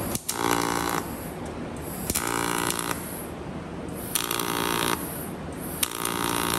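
MIG welder laying four short bursts of weld, each under a second long with a steady buzz, filling a hole in a steel door edge against a copper backing plate.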